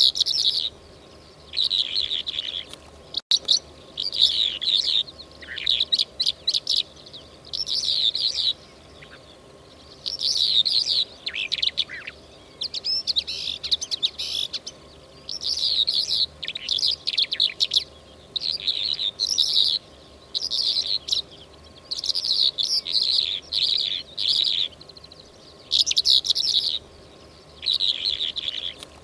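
Lark song from a hunting-call recording: short bursts of chirping, trilling phrases, one every second or two with brief pauses between, over a faint steady hum.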